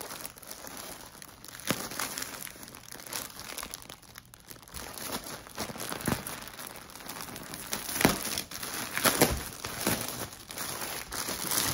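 Packaging crinkling and rustling as it is handled, with irregular sharp crackles that are loudest near the end: a wrapped throw blanket being unpacked.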